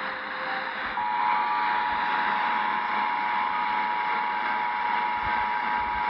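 Emergency Alert System attention signal: two steady tones sounding together (853 and 960 Hz) starting about a second in, over a constant hiss.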